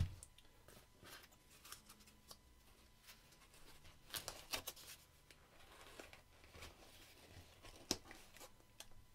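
Faint rustling and soft clicks of camera lenses being handled and pressed into the padded dividers of a fabric camera cube, with a soft knock at the start, a few clicks about four seconds in and one sharper click near the end.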